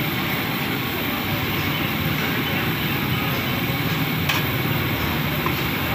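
Samosas deep-frying in a kadai of hot oil: a steady sizzle over the low rumble of the gas burner beneath it, with one sharp knock a little after four seconds in.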